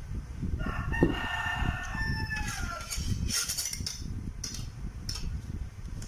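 A rooster crowing once, one call of about two seconds that drops in pitch at the end, followed by a few short clinks as tableware is handled.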